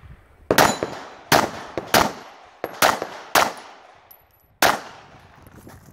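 Handgun firing six shots at an irregular pace over about four seconds, each a sharp crack with a short ringing tail.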